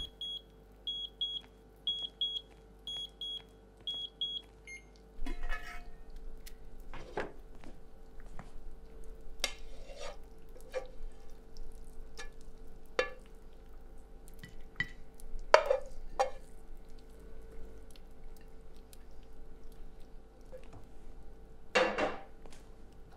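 Oven timer beeping in short pairs for about the first four seconds, signalling that the cooking time has run out. Then a frying pan and spatula scrape and knock as scrambled eggs are served onto plates, with dish clatter and a few sharper clanks.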